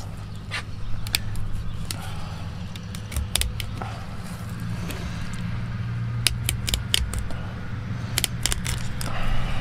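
Fillet knife cutting a golden tilefish fillet free, popping through the pin bones and sliding along the rib bones: a run of sharp, irregular clicks and crunches. A steady low hum runs underneath.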